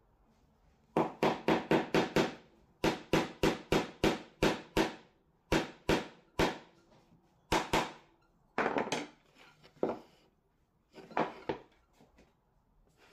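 Small wooden-handled hammer tapping a small pin into an MDF board. The taps come in quick runs of about five a second, a long run of several taps, then shorter runs and single taps toward the end.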